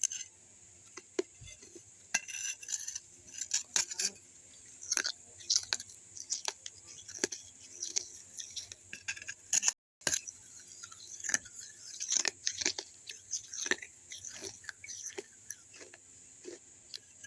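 Close-up crunching and chewing of pieces of a baked clay kulhad cup: a dense, irregular run of sharp crackles and snaps, broken by a brief gap of silence about ten seconds in.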